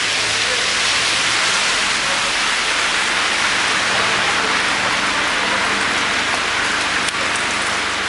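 Steady, even hiss of rain falling on a wet street and on the roofs of parked cars.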